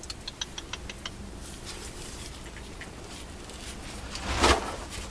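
Tarps rustling, with one loud rush about four and a half seconds in and a quick run of light ticks near the start.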